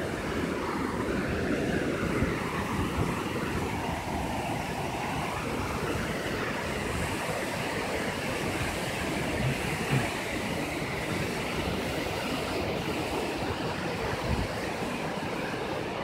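Steady rush of a waterfall cascading over rock, with a few brief low thumps.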